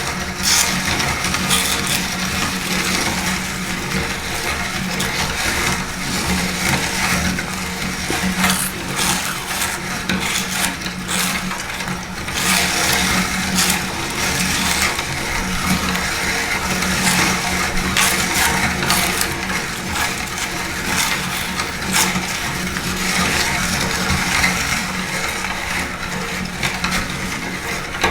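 Electric meat grinder running with a steady motor hum, with dense irregular crackling and crunching as dry, crunchy food is crushed through the auger.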